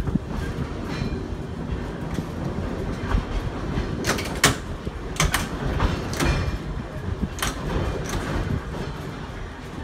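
Vintage electric trolley car rolling along the track: a steady low rumble from the wheels and running gear, with a run of sharp clacks from about four to eight seconds in.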